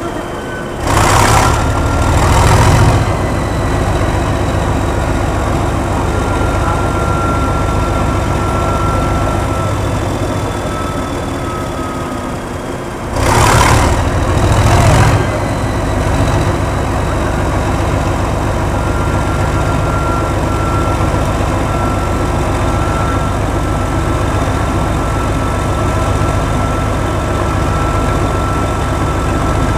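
Class 37 diesel locomotive's English Electric V12 engine running with a steady whistle, surging loudly twice in quick succession about a second in and again about halfway, then settling back to a steady run.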